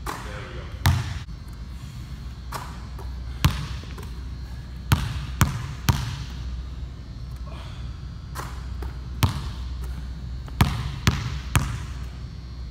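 Basketball bouncing on a hardwood gym floor, irregularly spaced, with a quick run of three bounces about five seconds in and another near the end.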